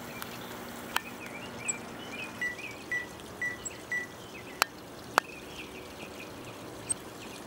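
Small songbirds chirping in many short calls, with a run of four short, even whistled notes about two and a half seconds in. Three sharp clicks stand out, the loudest two near the middle.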